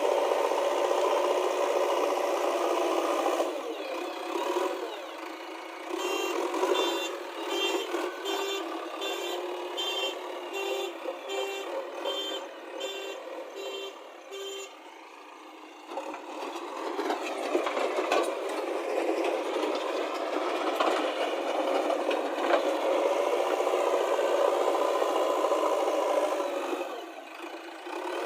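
JCB backhoe loader's engine running under work. In the middle, a reversing alarm beeps at a steady pace, about one and a half beeps a second, for around eight seconds. Then the engine works on alone.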